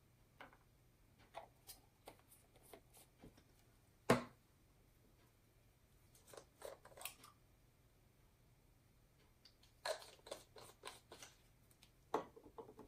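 Scattered small clicks and taps of glass ink dropper bottles and their caps being handled and set down on a table, with one sharper knock about four seconds in.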